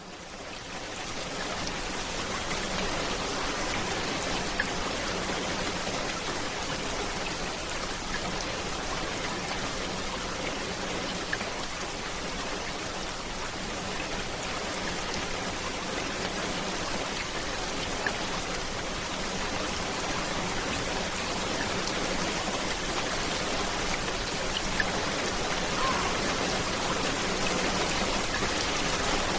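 Steady rain falling, an even hiss that fades in at the start, with a few sharp ticks of single drops now and then.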